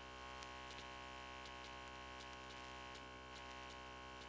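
Steady electrical mains hum from the sound-system amplification, with scattered faint clicks of vinyl record surface noise, in the gap between records.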